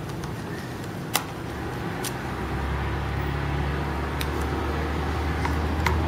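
Small screwdriver clicking sharply a few times on the screws of a white MacBook's battery-bay bracket as they are undone, over a low rumble that builds from about halfway in.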